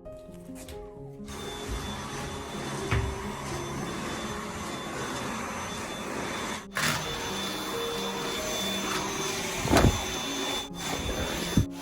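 Dyson V8 Slim cordless stick vacuum running: a steady rushing whir with a thin high motor whine, starting about a second in. It breaks off for a moment a couple of times, and there are a few knocks, the loudest near the end, with background music playing under it.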